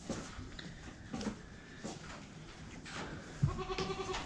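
A Boer goat bleats once near the end, a short held call. Before it come scattered light knocks and shuffles of goats moving on the barn floor.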